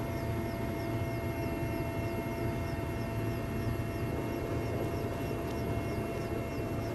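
A steady engine or motor running, with a faint high chirp repeating about three times a second.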